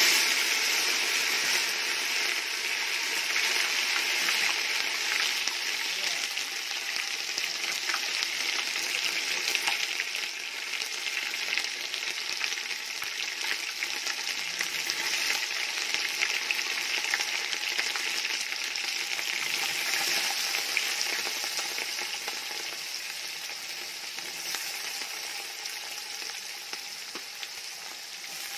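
Crushed ginger-garlic paste frying in hot oil in a metal pot: a dense sizzle with fine crackles that starts suddenly, loudest at first, and slowly dies down.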